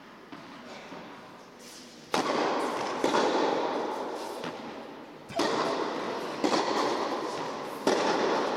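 Tennis ball struck hard with a racket three times, about three seconds apart. Each sharp hit is followed by a long echo dying away in the big indoor tennis hall.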